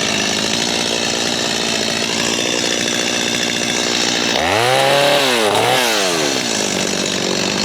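Gas chainsaw running steadily, then revved twice in quick succession about halfway through, the pitch rising sharply and falling back each time.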